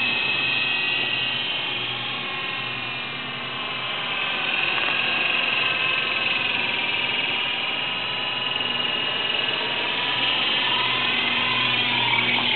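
An Air Hogs Gryphon toy RC helicopter in flight, fitted with an upgraded battery and rear rotor: the high whine of its small electric motors and spinning rotors. The whine rises and falls in pitch and loudness as the throttle changes.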